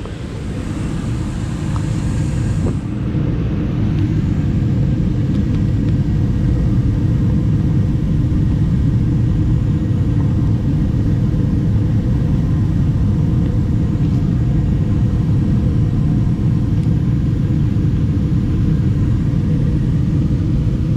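2012 Bryant Legacy Line gas furnace running during startup: a steady low rumble that builds over the first few seconds and then holds steady. A faint high hiss cuts off about three seconds in.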